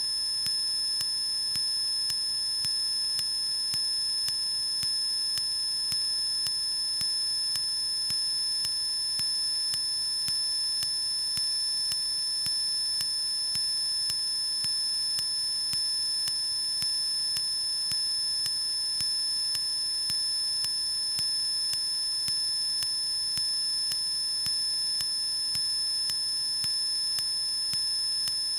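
Steady high-pitched electronic whine made of several fixed tones, with a faint regular ticking running under it and no engine or propeller noise coming through. This is electrical noise on the cockpit audio feed of a Cessna 152 in climb.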